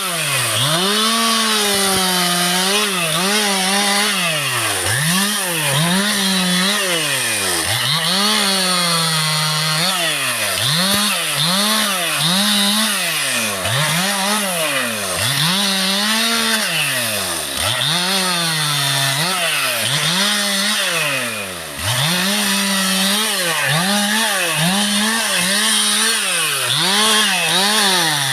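Two-stroke chainsaw engine revved up and down over and over, its pitch rising and falling roughly once a second, with a brief drop about 21 seconds in.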